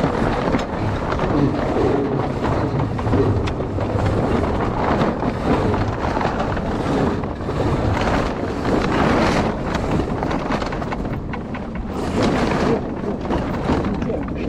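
Wind buffeting the microphone of a mast-mounted action camera on a moving sailboat, a loud, gusting rush.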